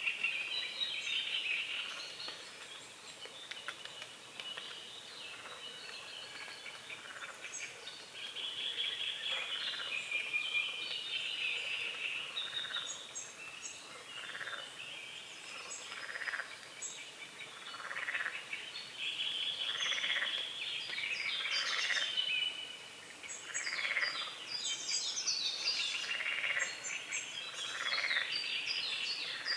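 Frogs croaking at a pond, with short calls repeating roughly every two seconds in the second half, under a dawn chorus of birds singing and chirping.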